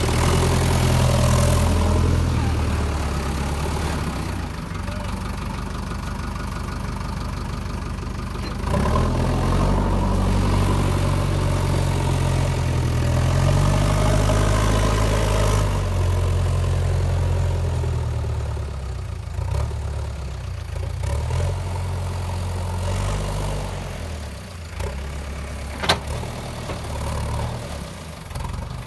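JCB 3DX backhoe loader's diesel engine running, its speed rising and falling several times under changing throttle. A single sharp click near the end.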